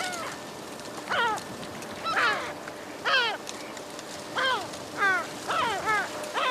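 Yellow-legged gulls calling: a string of short, high, falling calls, about one a second at first and coming faster and overlapping in the second half.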